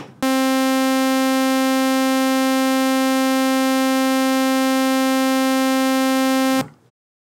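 Raw sawtooth wave from a Synthesizers.com Q106 analog oscillator, not yet waveshaped: one steady, bright buzzing note held for about six seconds, then cut off.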